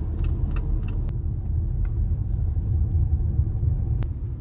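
Car driving, heard from inside the cabin: a steady low rumble of road and engine noise. There are faint quick ticks in the first second, and a sharp click about a second in and another near the end.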